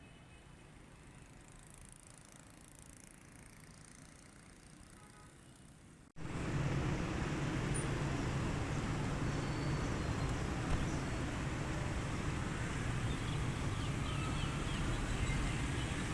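A faint, even hiss, then about six seconds in a sudden cut to steady road traffic noise, with a few faint high chirps in it.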